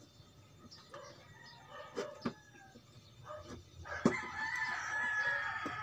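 A rooster crowing, one long call starting about four seconds in, over scattered sharp clicks from a knife prying the plastic bezel clips of an LED TV.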